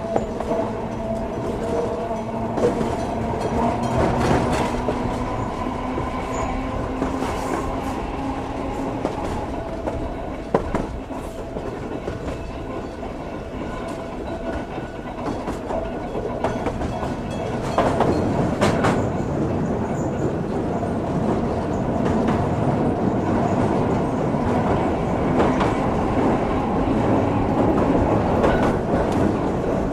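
Ueda Kotsu MoHa 5253 round-window electric railcar running, heard from a seat inside the car. There is a steady running rumble with a held tone through the first several seconds, and the wheels clack over rail joints. It grows louder about 18 seconds in.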